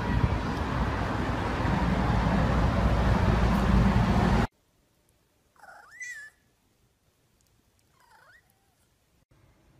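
A loud, steady rushing noise that cuts off suddenly, then a domestic cat meowing twice: one clear, rising-and-falling meow, then a shorter, fainter one.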